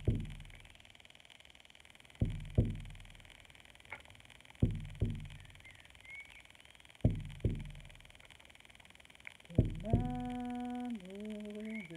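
Hand-held frame drum struck with a beater in a slow doubled heartbeat rhythm, two beats close together every two and a half seconds, each with a deep ringing boom. About ten seconds in, a woman's voice sings a long held note.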